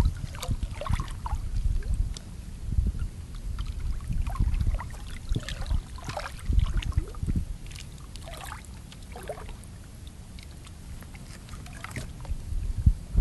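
Wind buffeting the microphone in uneven gusts, easing off for a few seconds past the middle, with small splashes and sloshing of shallow water against a kayak hull.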